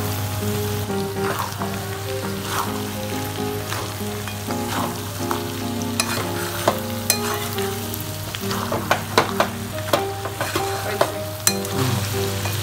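Bengali fish head curry with potatoes sizzling in a steel kadai while a spatula stirs it. The spatula scrapes and clinks against the pan, more often in the second half, over a steady low hum.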